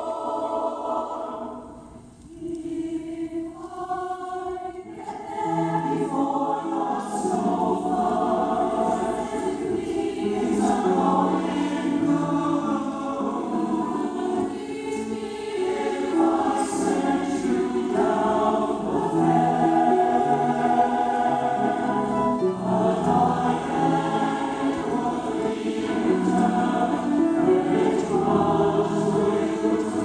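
Choir singing a folk song in parts, accompanied on a digital piano. The sound thins to a few held notes after a brief drop about two seconds in, then the full choir comes back in about five seconds in.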